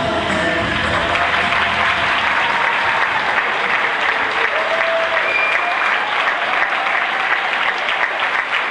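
Large audience applauding steadily, with the last low note of the music dying away in the first two seconds.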